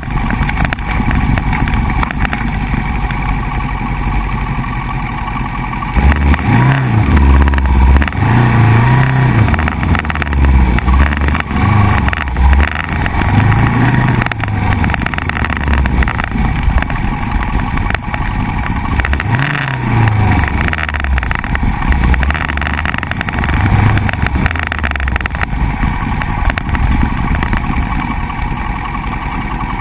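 Motorcycle engine running under way on a dirt and gravel road, with steady wind and road noise. From about six seconds in, the engine note rises and falls again and again as the throttle opens and closes.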